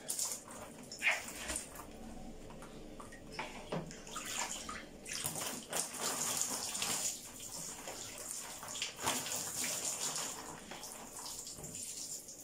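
Water poured from a plastic bowl over long hair, splashing and streaming down in uneven pours.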